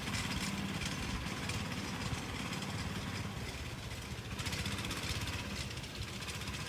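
A vehicle engine running steadily at a low, even speed.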